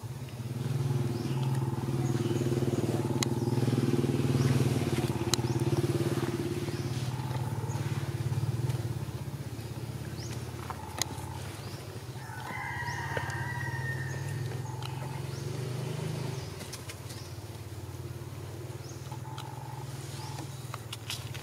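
A motor engine running steadily, loudest over the first several seconds and fading out about three-quarters of the way through. A short high call sounds over it about twelve seconds in.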